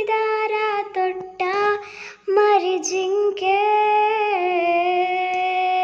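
A single high voice singing a Kannada song in short, gliding phrases, then holding one long note through the second half.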